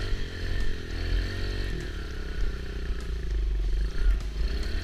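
Kawasaki KLX110's small four-stroke single-cylinder engine revving up and down as the dirt bike is ridden through snow, its pitch rising and falling several times.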